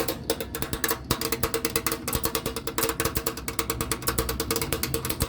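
Compressor contactor in an AC condensing unit chattering, clicking in and out rapidly at about a dozen times a second. The chatter is a sign of intermittent low control voltage to its coil.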